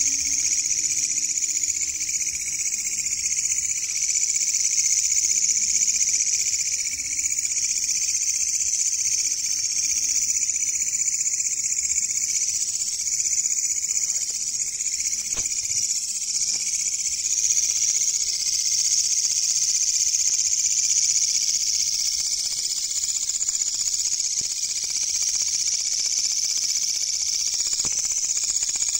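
Katydid calling: a loud, steady, high-pitched buzzing trill that never breaks.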